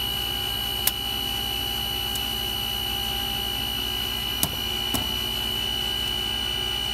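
Steady high-pitched electrical whine and hum of the Avro Vulcan's powered-up cockpit systems, engines not yet started. Three sharp switch clicks sound about a second in and twice between four and five seconds.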